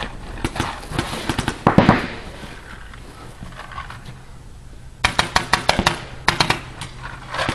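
Paintball markers firing rapid strings of shots, about ten pops a second: one burst in the first two seconds and another from about five seconds in.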